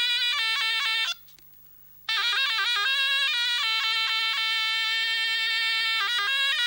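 A single reed wind instrument playing an ornamented folk melody with quick trills and held notes. It breaks off for about a second shortly after the start, then carries on.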